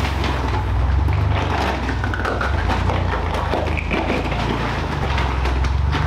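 A 4x4's engine running under way, with the crunch and crackle of tyres rolling over a rough gravel or rocky trail.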